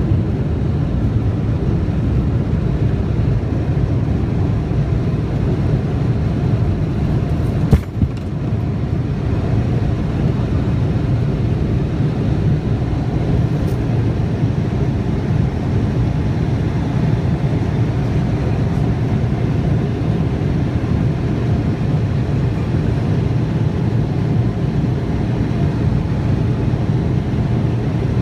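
Cabin noise of a Boeing 777-200LR during takeoff and initial climb: its GE90 turbofans and the rushing air make a steady low rumble heard from a window seat over the wing. There is a single sharp thump about eight seconds in.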